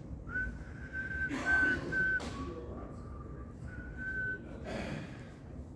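A person whistling a few long held notes: a high note in several stretches, a step down to a lower note, then the high note again. Some brief rustling noise comes in between.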